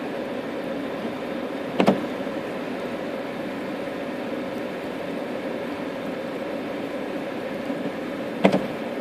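Steady hum and hiss of a car idling, heard from inside the car, broken by two short sharp clicks, one about two seconds in and one near the end.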